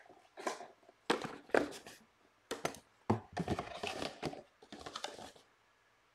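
A cardboard trading-card box and the foil pack wrappers inside it being handled: a run of irregular rustles, crinkles and knocks that stops shortly before the end.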